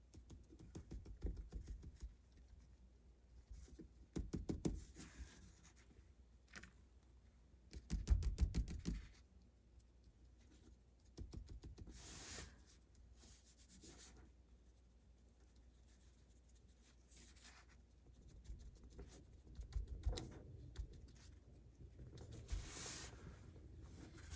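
Faint bursts of quick light tapping and scratching as a cosmetic wedge sponge dabs paint onto a small 3D-printed model part. The loudest burst comes about eight seconds in.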